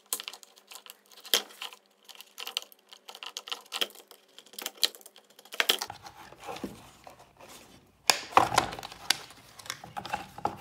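Utility knife cutting and shaving away flimsy plastic ledges and braces inside a lawnmower battery-pack case: irregular clicks, snaps and scrapes, with a louder stretch of scraping about eight seconds in.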